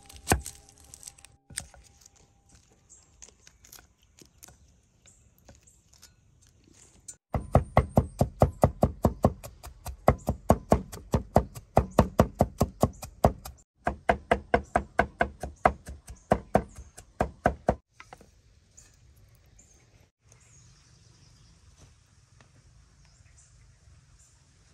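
Steel cleaver chopping garlic on a wooden chopping board: a few light single cuts, then two long runs of rapid, even chops with a brief break between them.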